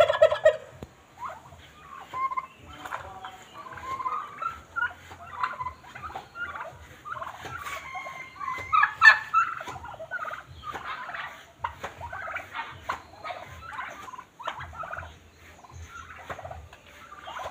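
A flock of domestic turkeys calling: a run of short, irregular gobbles and chattering calls from several birds, loudest at the very start and again about nine seconds in.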